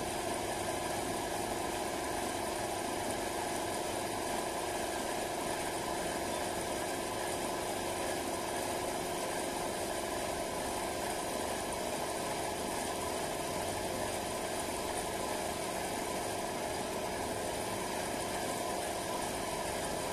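Air compressor for a paint spray gun running steadily, a constant hum.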